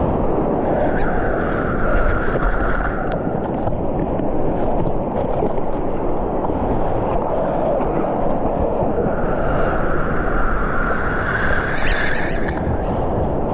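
Shore-break surf and white water washing around a GoPro held at water level, with wind buffeting the microphone. Two stronger washes of foaming water swell and fade, one early and one about three quarters of the way through.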